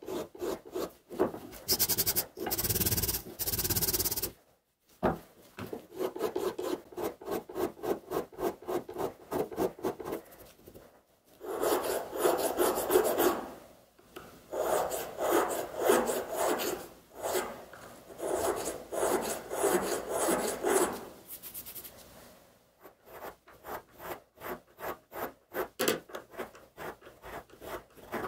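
Hand files rasping in quick back-and-forth strokes, about four a second, on a small 52100 steel kiridashi and its G10 handle scales. The strokes break off briefly a few times.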